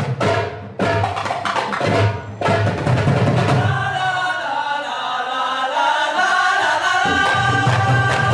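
Marawis ensemble playing: hand drums strike a fast pattern for the first couple of seconds, then the group sings a chant in unison from about three seconds in. The deep drum beat comes back in under the voices near the end.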